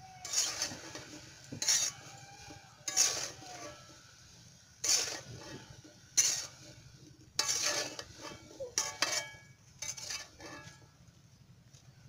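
Metal spatula stirring chopped vegetables in an aluminium karahi, scraping the pan with about eight separate strokes, each with a short metallic ring.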